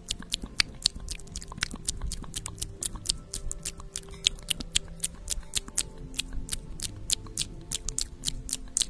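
Quick, sharp clicking from a small pink plastic item handled right at the microphone, about five or six clicks a second, over faint background music.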